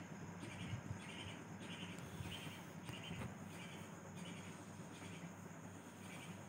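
Faint short chirps repeating about twice a second over a steady low hum and hiss, pausing briefly near the end before one last chirp.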